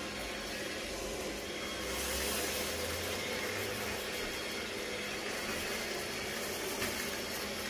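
Roborock S7 MaxV Ultra robot vacuum running its suction fan and brushes as it sets off on a cleaning run, a steady hiss that gets a little louder between about two and four seconds in.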